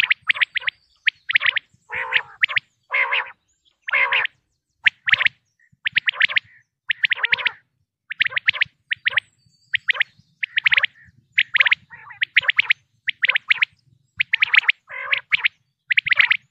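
Common quail calling over and over: short clusters of quick, sharp chirps, about one or two clusters a second, with brief gaps between them.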